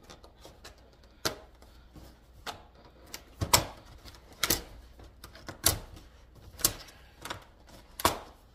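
A string of sharp clicks and knocks, roughly one a second, from small hard objects being handled and set down on a kitchen counter.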